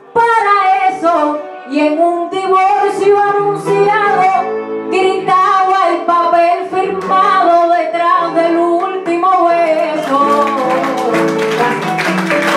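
A woman sings a décima in Cuban punto guajiro style, accompanied by plucked acoustic guitars. About ten seconds in, applause breaks out as her verse ends.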